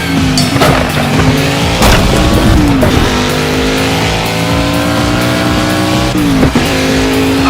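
Dubbed race car engine sound effects: several engines running at high revs, their pitch dipping and gliding as cars pass, with a few brief bursts of noise, over background music.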